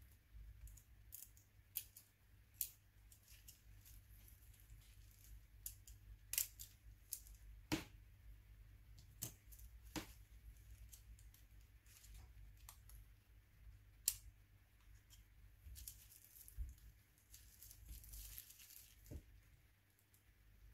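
Faint, scattered small clicks and taps of a plastic spudger prying at the parts of an opened Nokia N93 phone, with a patch of soft crinkling from the bubble wrap under it near the end.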